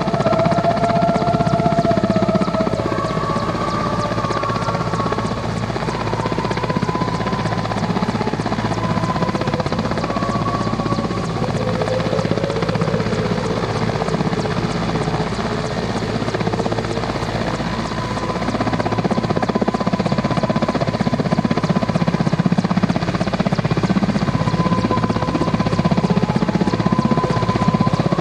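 Mil Mi-17V5 twin-turbine military helicopter hovering under load, a steady rotor beat with whining tones above it that drift slightly in pitch.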